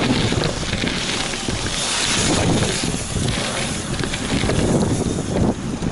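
Wind rushing over the camera's microphone while riding fast over pump-track rollers, with the wheels rolling over dirt and asphalt. The noise is steady, swelling about two seconds in.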